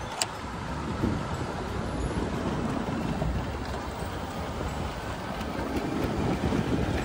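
Wind rushing over the microphone and road noise from riding an electric bike through city traffic, with a brief click just after the start.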